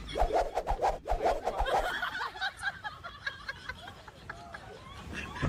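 A person laughing in quick rhythmic bursts, about five a second, dying down after about two seconds into softer mixed sound with light clicks, then starting up again right at the end.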